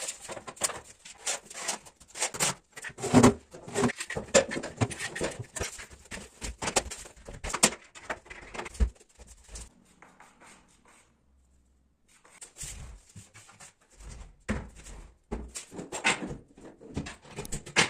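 Irregular knocks, clicks and scrapes of wood and tools being handled during wardrobe building, stopping for about two seconds near the middle before starting again.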